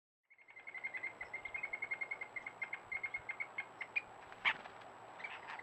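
A bird calling in a fast run of short, clipped notes on one pitch, about eight a second, for three and a half seconds, followed by a single louder, sharper call about four and a half seconds in.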